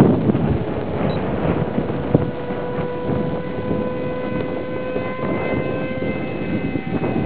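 The motor and propeller of a small radio-controlled model airplane give a steady whine as it flies overhead, the pitch shifting only slightly. Wind rumbles on the microphone underneath.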